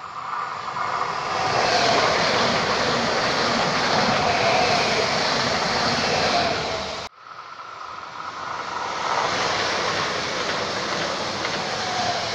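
Eurobahn Stadler FLIRT electric multiple unit passing close by on the rails: wheel-and-rail running noise with a faint steady whine, rising as it approaches. It cuts off abruptly about seven seconds in, and a second passing train of the same kind builds up again.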